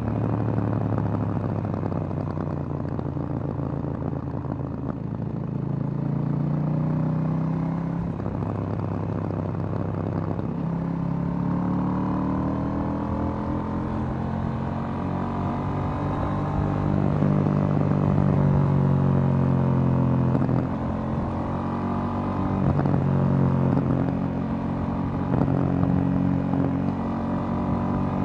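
2018 KTM 790 Duke's parallel-twin engine through its stock exhaust, heard from the rider's seat while under way. The revs rise and fall with throttle and gear changes, with a long climb in pitch around the middle and sudden drops a little later.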